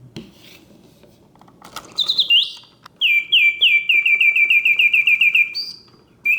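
Vintage Reuge singing bird cage's bellows-and-whistle mechanism singing: after a quiet start, a few falling whistled notes about two seconds in, then a fast trill of falling notes, about five a second. The song breaks off briefly near the end and starts again.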